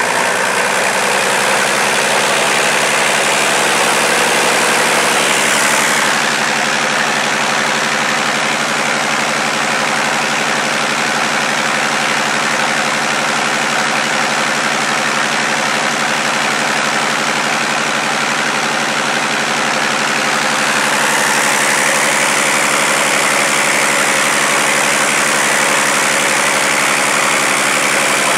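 Deutz BF6M1015 V6 diesel being spun by a run-in test stand without firing, for a motored break-in: a steady mechanical running sound that picks up slightly in the first second or two, then holds an even speed.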